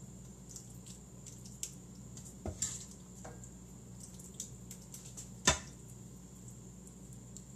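Soft clatter and scraping of a wooden spoon scooping filling out of a frying pan, a few light taps and one sharp knock about five and a half seconds in, over a steady low hum.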